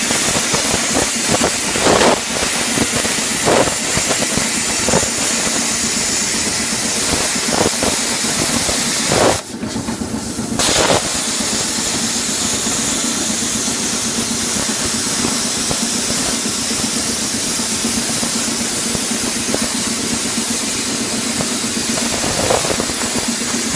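Plasma cutter cutting steel plate: a loud, steady hiss of the air-plasma arc over a constant low hum. The hiss breaks off for about a second a little before the middle, then starts again.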